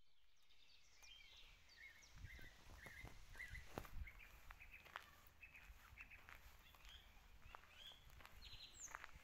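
Faint birdsong, many short chirps and trills, over footsteps on gravel.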